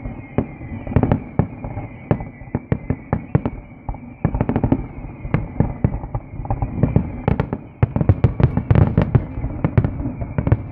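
Aerial fireworks going off in rapid, irregular succession: many sharp bangs and crackles, coming thicker and louder in the second half.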